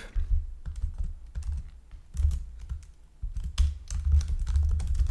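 Typing on a computer keyboard: a run of keystrokes, a lull about three seconds in, then quicker, denser typing.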